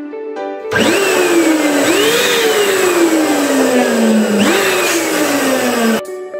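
Electric balloon pump inflating a latex balloon: the motor starts under a second in and runs loud with a rush of air, its whine sinking steadily in pitch and jumping back up twice, then cuts off suddenly near the end. Soft background music plays before the pump starts and after it stops.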